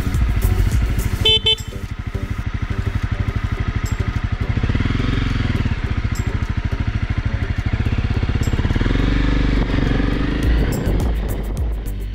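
Motorcycle engine idling with a steady, even pulsing, its pitch rising and falling twice as the bike moves off. A short sharp sound comes about a second in.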